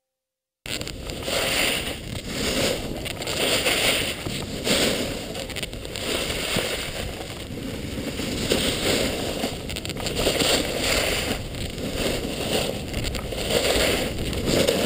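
Snowboard riding heard from a moving camera: wind rushing over the microphone and a board's base and edges scraping across packed snow, in uneven surges. It starts suddenly under a second in.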